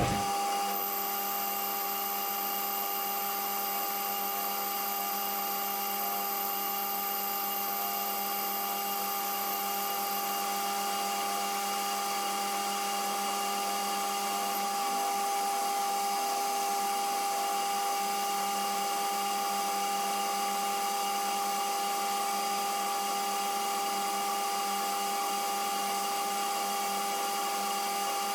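Small lathe boring bar squealing as it cuts the bore of a 4140 steel collet: a steady ringing cut made of several pitched tones, starting suddenly, with a very high whistle that fades out about ten seconds in.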